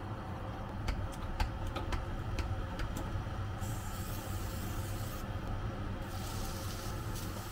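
A few light taps at a nonstick frying pan, then a grinder turned over the pan with a brief gritty hiss about halfway through. Near the end, raw shrimp go into the hot oiled pan and start to sizzle, over a steady low hum.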